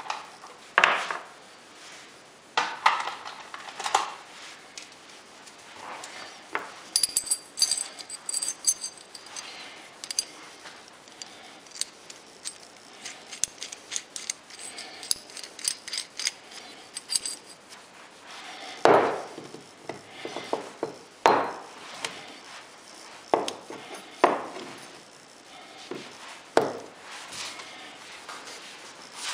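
Steel milling-machine strap clamps, with their bolts and nuts, being handled and set down on a wooden workbench: a series of sharp knocks and clunks. Through the middle stretch there is light metallic jingling and clinking of the parts.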